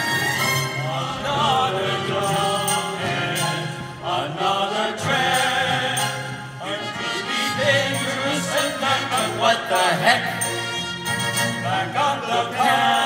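Music with a group of voices singing.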